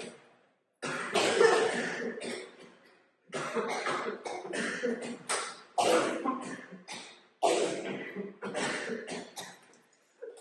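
A person coughing in repeated fits: four bouts of several coughs each, a few seconds apart, with one short cough at the very end.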